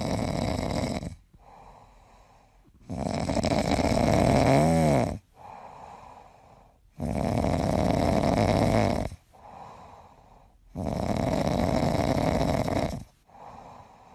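Snoring, the sleeper apparently a pet: four loud snores of about two seconds each, one every four seconds or so, with soft breaths between them. The second snore carries a whistle that rises and falls in pitch.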